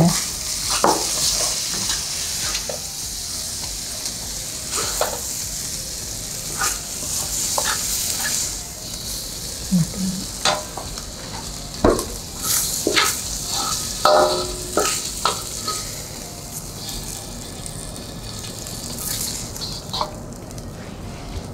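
Food sizzling in a hot frying pan while a utensil stirs and scrapes it, with short knocks against the pan now and then. The sizzle is strongest for about the first nine seconds and then dies down.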